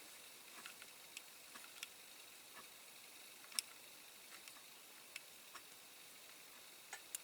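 Near silence broken by faint, scattered small clicks and taps of die-cast model parts being handled as its tiny doors are pushed into place and shut; the loudest click comes about three and a half seconds in.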